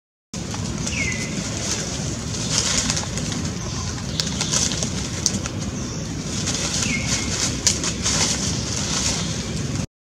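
Outdoor ambience with a steady low rumble, crackling and rustling of dry leaves, and a short whistled call that slides down in pitch, heard twice: about a second in and again around seven seconds.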